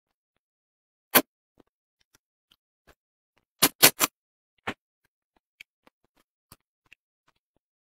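Close-miked crisp bites and chewing on deep-fried fish: a single crunch about a second in, a quick run of three near four seconds and one more just after, then a few faint small crackles.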